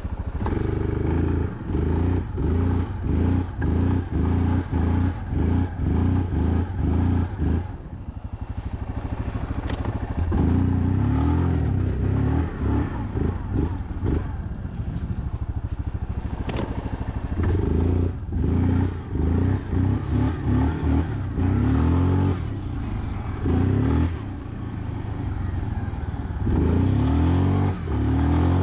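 ATV engine revved in quick throttle bursts about twice a second, with a few longer steady revs between, as the quad tries to drive out of deep snow it is stuck in.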